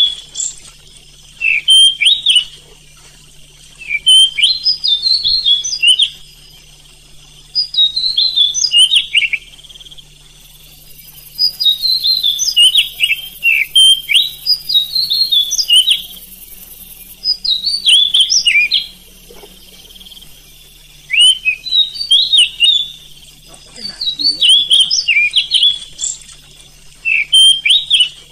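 Oriental magpie-robin (kacer) singing: loud bursts of quick, high whistled notes sliding up and down, each phrase one to two seconds long, repeated again and again with short pauses between.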